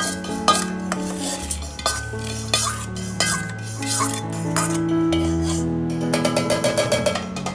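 A steel spoon scraping and clinking against a stainless steel kadai and mixer jar as dry-roasted spices, garlic and curry leaves tumble into the jar, with a quick run of light taps near the end. Background music with held notes plays under it.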